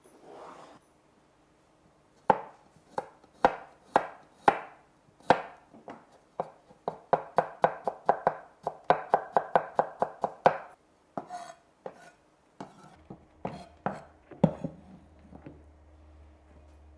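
Knife chopping on a cutting board: a few slow single cuts about two a second, then a fast run of about five chops a second, thinning to scattered cuts near the end.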